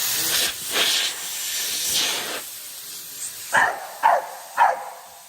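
A steady spraying hiss for about the first two and a half seconds, then a dog barks three short barks about half a second apart.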